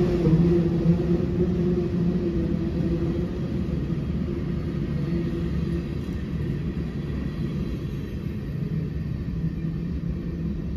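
Covered hopper cars of a CSX freight train rolling past with a steady low rumble and hum, fading as the end of the train goes by.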